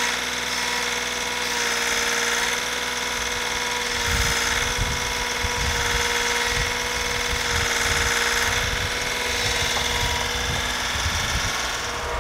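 Compact tractor engine running steadily while its backhoe digs out a tree stump. From about four seconds in come irregular low thuds of earth and roots giving way.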